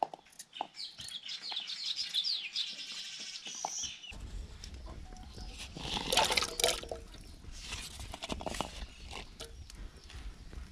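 Birds chirping, then carrot slices tipped into an aluminium pot of hot liquid over a wood fire, landing with a clatter and a burst of sizzling about six seconds in.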